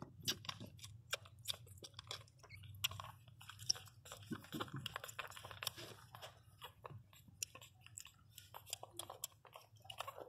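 Pinscher puppies suckling at their mother's teats: rapid, irregular wet smacking and sucking clicks, over a faint low steady hum.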